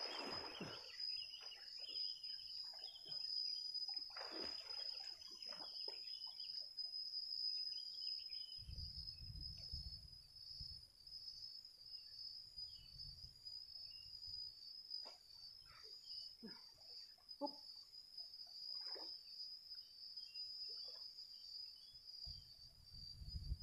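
Water splashing as a man swims and ducks under in a deep pond for the first few seconds, then scattered small splashes, over a steady high insect drone. Low rumbles come in about nine seconds in.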